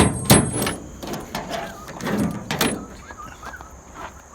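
A series of sharp knocks and clatters, the two loudest right at the start and two more about two seconds in, fading toward the end.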